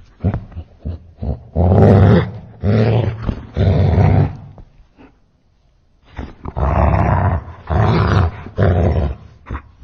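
Angry dog barking and growling, slowed down into deep, drawn-out calls: three long calls, a pause of about a second and a half, then three more.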